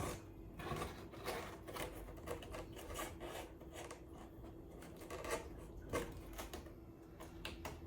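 Cardboard panels being handled and pushed together, with scraping and rubbing and scattered clicks and taps as the pieces are fitted into place. The sharpest tap comes about six seconds in.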